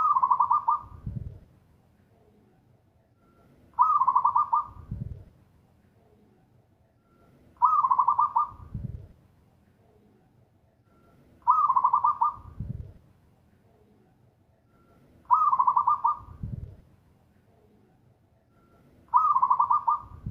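Zebra dove (perkutut) singing its loud cooing song, repeated about every four seconds. Each phrase is a quick rolling run of notes ending in a deep low coo, six phrases in all.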